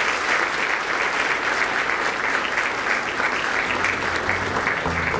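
A large audience applauding, a dense, steady clapping that holds at one level throughout. Quiet music starts to come in underneath near the end.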